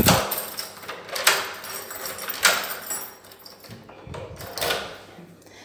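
Wooden door being shut with a thud, followed by three sharp clicks as it is latched and locked.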